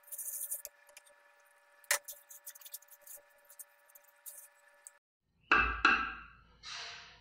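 A spatula stirring and scraping a dry flour mixture in a pot, with a sharp knock about two seconds in and two heavier knocks followed by a brief scrape near the end.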